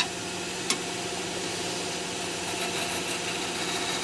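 Wood lathe motor running steadily with a constant hum, spinning a turnip between centres, with a sharp click under a second in.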